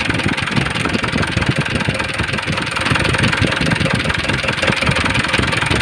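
Mitsubishi Fuso 4D34 four-cylinder turbo-diesel running cold at idle, loud, with a fast steady clatter of knocks. The engine was freshly overhauled yet knocks and shows blow-by.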